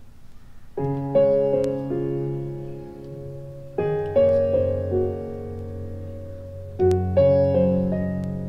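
Piano-like keyboard accompaniment playing slow chords over low bass notes. A new chord is struck about every three seconds and fades away, with a few notes added after each strike. The bamboo flute has not yet come in.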